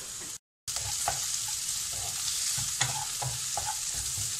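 Chopped onion, capsicum and green chillies sizzling in hot oil in a kadhai, with a wooden spatula stirring and knocking against the pan at irregular moments. The sound cuts out briefly about half a second in.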